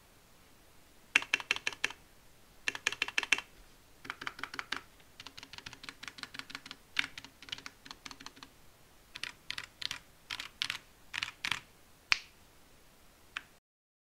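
Royal Kludge RK61 60% mechanical keyboard with unlubed RK Red linear switches, PBT OEM-profile keycaps, a foam-lined case and band-aid-modded stabilizers, being typed on. Typing starts about a second in and comes in quick runs of keystrokes with short pauses between them, ending with a few single keystrokes.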